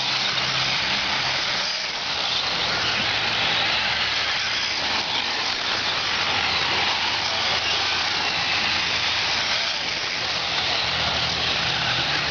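Racing engines running together, a dense buzzing noise over a low engine drone whose pitch shifts up and down as they speed up and slow.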